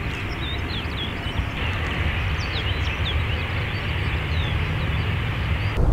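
Airbus A340 BLADE jet airliner's four engines running with a steady rumble as it rolls along the runway. Small birds chirp throughout.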